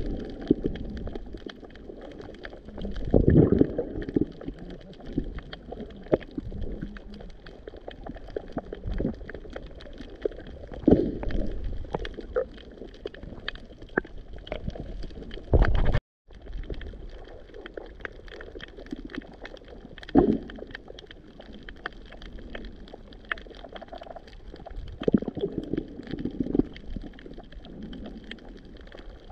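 Underwater coral-reef soundscape picked up by an unhoused action camera: a dense, steady crackle of tiny clicks, which the uploader takes for fish or corals communicating. Every few seconds a louder gurgling surge of water passes close to the microphone, and the sound cuts out for a moment about halfway.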